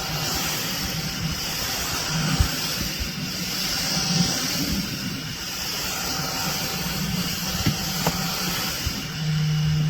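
Mini desktop vacuum cleaner's small motor running steadily, a whirring hiss with a low hum under it. A steadier low hum comes in near the end.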